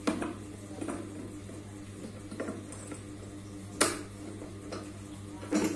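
Scattered clicks and knocks of small parts being handled and fitted on a child's tricycle seat frame, about six in all, the sharpest nearly four seconds in, over a steady low hum.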